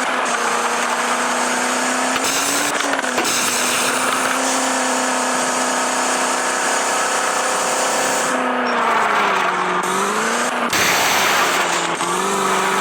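Maruti Suzuki Eeco van's engine running at high revs, the note held fairly steady, then dropping and climbing again a couple of times in the second half, with a louder rush of noise about eleven seconds in.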